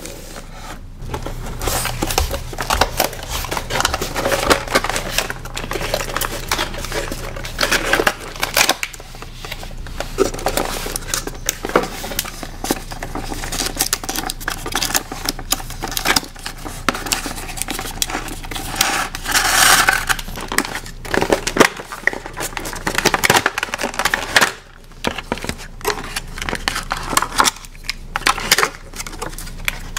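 Toy unboxing handling noise: cardboard packaging clicking and scraping as wire twist ties are untwisted from the insert, and a clear plastic bag crinkling. About two-thirds of the way through there is a louder rustle.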